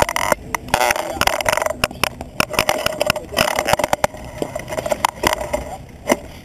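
Handlebar-mounted camera on a road bike picking up rapid, irregular rattles and knocks as the bike moves off and rolls over rough concrete.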